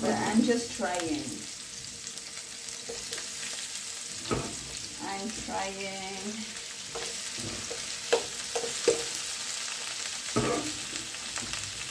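Chopped onions, eggplant, courgette and peppers sizzling in hot oil in a frying pan as they are sautéed, a steady hiss. A few sharp clicks and knocks come as more pieces go into the pan.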